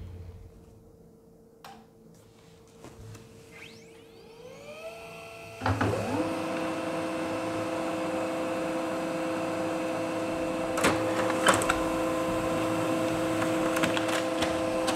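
HP Laser MFP 135wr laser printer printing a page sent from a phone: its motors spin up with rising whines about four to five seconds in, then it settles into a steady mechanical whirring hum as the sheet feeds through, with a few sharp clicks partway through.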